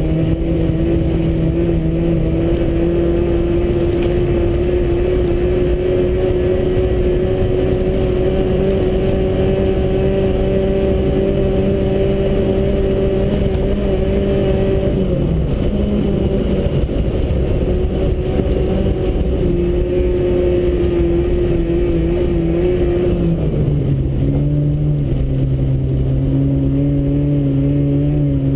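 Volkswagen Rabbit GTI engine running hard at steady high revs, heard from inside the cabin while ice racing on studded tires. The revs drop about halfway through and drop again near the end, settling lower. A constant low rumble of the tires on the ice runs underneath.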